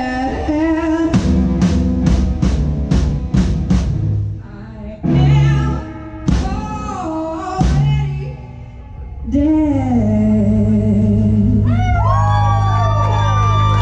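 A live band playing: a woman singing over electric guitar, upright bass and drum kit. Near the end the song gives way to a siren-like tone swooping up and down in pitch over a held low bass note.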